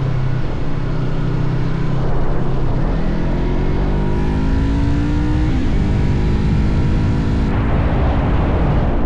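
Motorcycle engine under way, pitch rising as it accelerates for a couple of seconds, then dropping suddenly at a gear change about halfway through and running steadily after, over a constant low rumble of wind and road noise.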